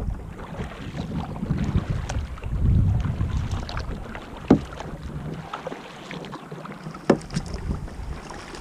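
Wind noise on the microphone while a kayak is paddled across calm water, rising and easing in gusts. Two sharp knocks, one about halfway through and one near the end.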